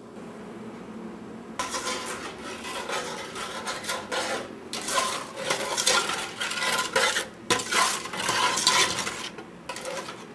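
A metal spoon stirring and scraping around a stainless steel pot, clinking against its sides and bottom as sugar is stirred into milk that has been reduced to a thick consistency. The scraping starts about a second and a half in and goes on in irregular strokes with a few short pauses.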